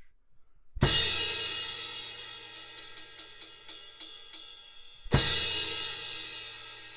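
18-inch Sabian AAX X-Plosion crash cymbal struck hard about a second in and left to ring out in a long fading wash. In the middle comes a run of about eight quick light hits, and about five seconds in there is a second hard crash that rings and fades.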